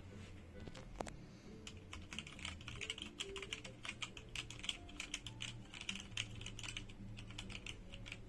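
Typing on a Genesis Thor 300 TKL mechanical keyboard with red switches: a fast, dense run of key clacks that starts about a second and a half in and eases off near the end, with background music underneath.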